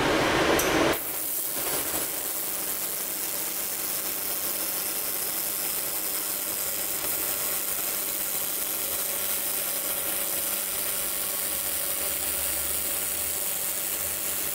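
Handheld laser welder running a bead along stainless steel with the beam wobbling at 100 Hz: a steady crackling hiss of the weld and its spark spray that sets in about a second in, after a brief louder rustle.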